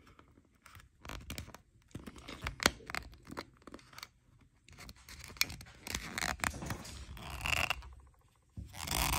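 Metal bottom cap being twisted back onto an Oral-B iO electric toothbrush handle by hand: irregular small clicks and short scrapes, with a longer scrape near the end as the cap is turned home.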